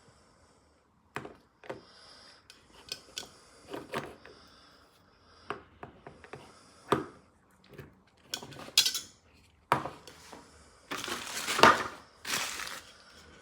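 Kitchenware being handled: scattered clinks and knocks, then two louder, rougher noises of about a second each near the end.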